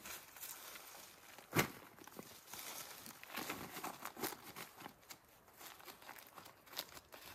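Bare hands digging and scraping in loose soil, rustling dry leaves and twigs, with a sharp click about one and a half seconds in.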